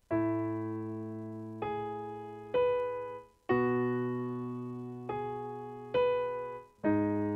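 Yamaha electronic keyboard playing a slow introduction of sustained piano chords: seven chords struck one after another, each ringing and fading before the next, the first coming in a moment after silence.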